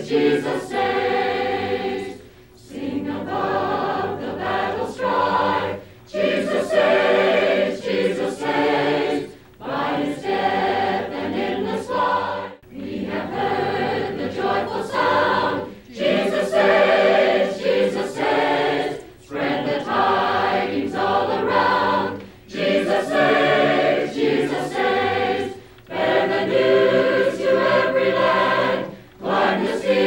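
Choir singing a hymn in phrases of about three seconds, each ending in a short break.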